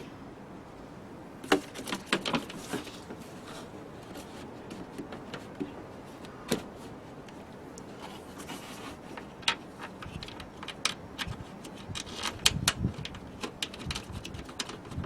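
Scattered clicks and knocks of hand tools and parts being handled, with sharp knocks about a second and a half in and again around six and a half seconds, and a quicker run of clicks later on.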